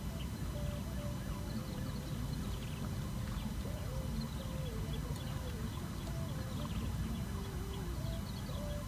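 Steady low wind rumble on the microphone, with a faint wavering tune stepping up and down in pitch in the background and scattered faint high chirps.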